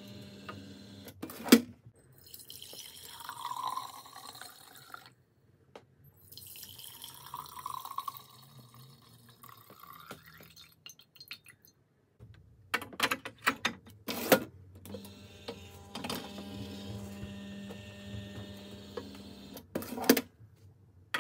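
Watch-cleaning solution poured into glass jars in two pours of a few seconds each. Sharp clicks and knocks and a steady motor hum from a watch-cleaning machine come before and after the pours.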